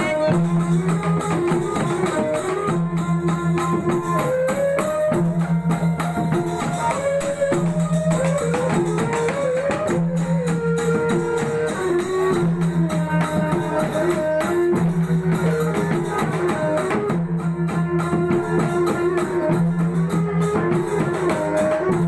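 Sasak cilokak folk music: a violin playing a sliding, ornamented melody over a plucked gambus lute, with a steady jingling rhythm of small percussion.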